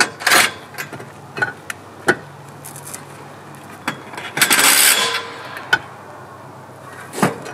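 Metallic clinks and knocks of aluminium solar-panel mounting rails and fittings being handled and fixed. There are several separate knocks, the loudest just after the start, and a short burst of louder noise, under a second long, near the middle.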